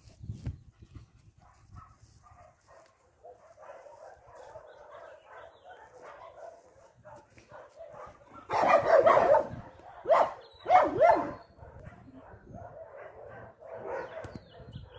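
A dog whining on and off, then giving a few loud barks or yelps about nine to eleven seconds in.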